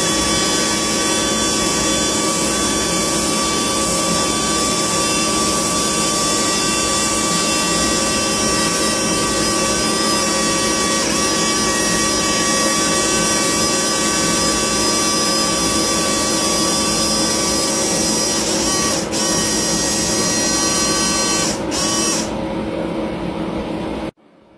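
Electric hydraulic pump of an RC model excavator running steadily with a whine of several steady tones, as the boom moves. A couple of clicks near the end, then the sound cuts off abruptly.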